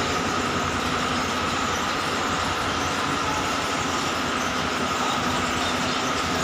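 Steady machine noise with a constant high whine, even and unbroken throughout.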